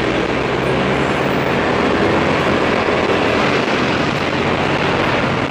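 Motorcycle on the move at a steady pace: the engine runs with a low, even hum under constant road and wind noise.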